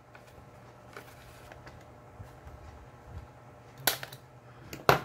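A few faint ticks, then two sharp clicks about a second apart near the end, over a low steady hum.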